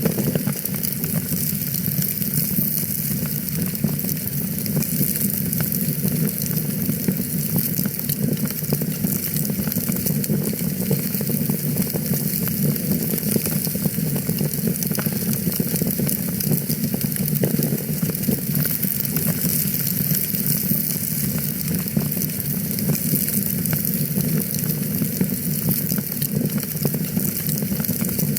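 Fireplace fire crackling: many small irregular pops over a steady low rumble and hiss.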